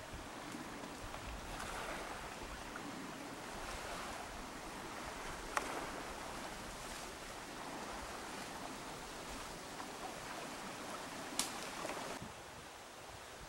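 Sea waves washing on the shore, a steady rush that swells and eases in irregular surges, with two sharp clicks, one about halfway through and one near the end.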